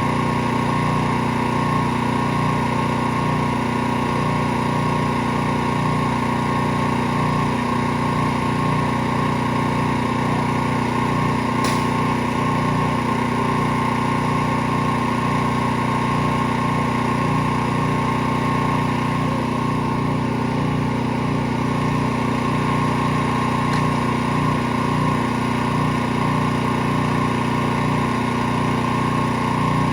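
Small gasoline engine of a pressure washer running steadily at a constant speed.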